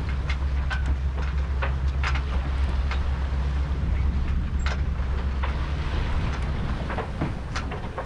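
Wind buffeting the microphone on a sailing yacht under way, a steady low rumble, with irregular short splashes and ticks from water along the hull.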